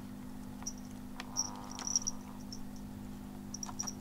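Ice cubes in a water bowl clinking with brief high-pitched rings, and water lightly splashing, as a kitten paws at the ice, over a steady low hum.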